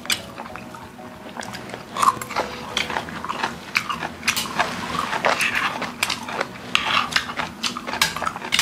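Close-miked eating: repeated chewing and biting of food, with sharp clicks of metal spoons and chopsticks against stainless-steel bowls.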